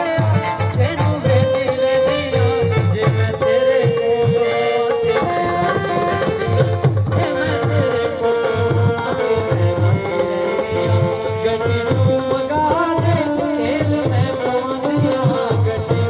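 Music: a melody line held over a steady, repeated hand-drum rhythm.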